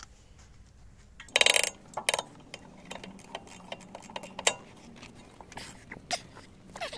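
Ratchet wrench with a socket clicking as it turns out a brake caliper support bolt: a quick burst of rapid clicks about a second and a half in, then a steady run of ticks, several a second.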